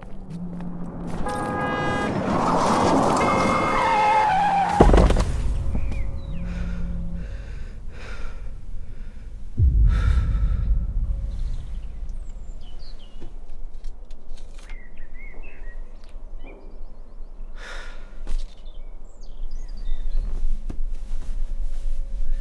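Designed city-traffic soundscape: car horns honk over swelling street noise that builds to a screech, then cuts off suddenly about five seconds in with a deep low boom. A second deep boom comes near ten seconds, followed by a quieter stretch with scattered faint sounds.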